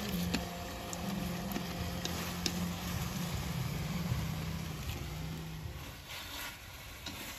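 Pork pieces sizzling in hot fat in a wok, with a few sharp clicks of chopsticks against the pan as they are turned. A low hum runs underneath and fades about five and a half seconds in.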